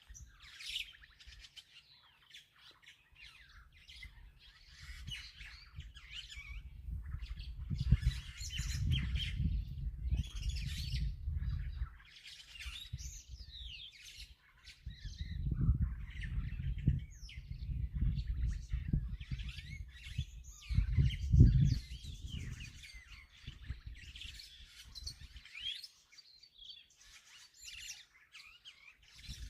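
Wild birds chirping and calling, many short notes and quick rising and falling whistles, overlapping throughout. A low rumble swells underneath for several seconds at a time, loudest about eight and twenty-one seconds in.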